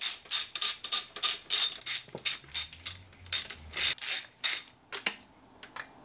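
Hand ratchet clicking in a quick run of strokes, about four a second, as bolts are undone on a VW 2.0 TSI engine's cylinder head. The clicking stops about five seconds in.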